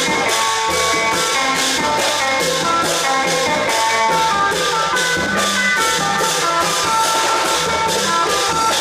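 Thai klong yao (long drum) ensemble playing: drums and percussion keeping a steady beat of about three strokes a second, with a melody of held notes over it.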